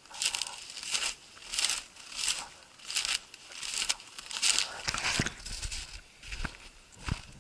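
Footsteps crunching through crusted snow and dry grass at a steady walking pace, about three steps every two seconds. A low rumble joins in during the second half.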